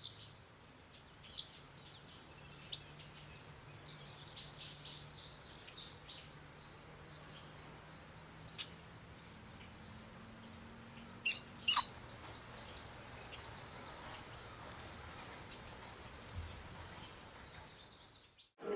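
Small birds chirping and tweeting over faint outdoor background hum, with two louder, sharp chirps close together about eleven seconds in.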